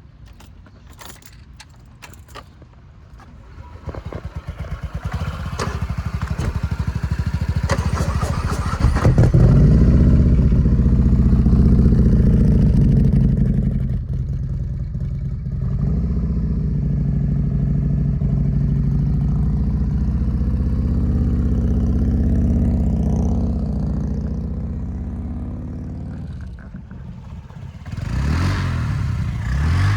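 A Harley-Davidson motorcycle's V-twin engine starting and running with a deep, steady rumble, then rising in pitch as it revs near the end. A few clicks and a clatter come before the engine builds up.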